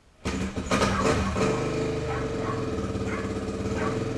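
Kawasaki KLX700R dirt bike engine starting up. It fires about a quarter second in, revs briefly, then settles into a steady idle.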